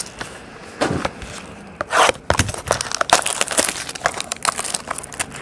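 Clear plastic shrink-wrap crinkling and a cardboard card box being handled as the box is unwrapped: irregular crackles and small knocks, with a louder rustle about two seconds in.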